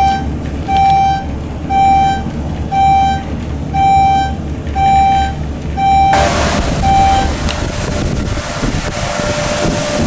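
A moving elevator car hums steadily while a short electronic beep sounds about once a second, once for each floor passed on the way up. About six seconds in, this gives way to outdoor street noise with wind on the microphone.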